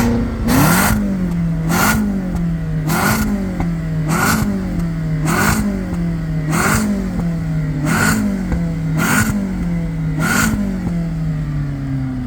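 W8 engine on its stock exhaust, revved in short throttle blips about once a second, about nine times in a row. Each blip jumps up sharply and then falls back slowly.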